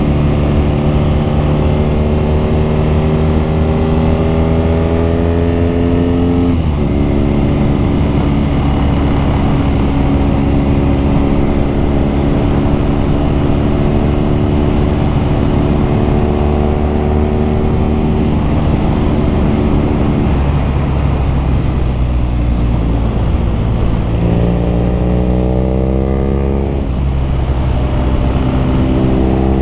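BMW R nineT's air-cooled boxer twin under way, its exhaust note rising in pitch as it pulls through a gear. It drops on an upshift about six seconds in, holds a steady cruise, then eases off and accelerates again, with another upshift near the end. Wind rumble on the microphone runs underneath.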